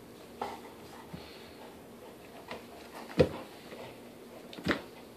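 Golden retriever chewing and mouthing a fabric Kong Wubba toy, with about five short, sudden sounds of jaws and toy. The loudest comes about three seconds in and another near the end.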